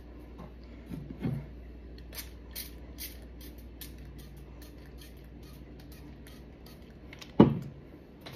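A hairbrush brushed back through hair in a run of short, quick scratchy strokes, after a couple of soft knocks. One loud, sudden thump about seven seconds in.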